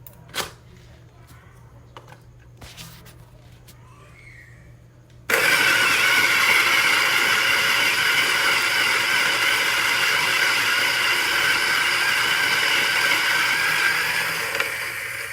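A few light clicks, then about five seconds in a 63 mm flat-burr electric coffee grinder switches on abruptly and runs with a steady, loud whirring grind, easing slightly near the end.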